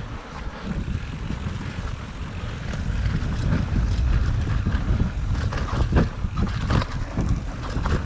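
Mountain bike riding down rough single-track trail: wind buffeting the microphone over the rumble of tyres and the bike's rattle. It grows louder about three seconds in, with sharp knocks and rattles over trail bumps around six to seven seconds in.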